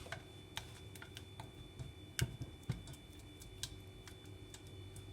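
Heat-proof spatula tapping and scraping against a saucepan while stirring thick, freshly cooked banana custard: irregular light clicks, a few a second, one louder knock about two seconds in.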